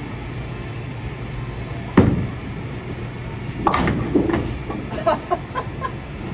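Bowling-alley pinsetter machinery running with a steady low hum. A sharp knock comes about two seconds in, then from about four seconds a burst of clattering, ringing knocks of pins and machinery.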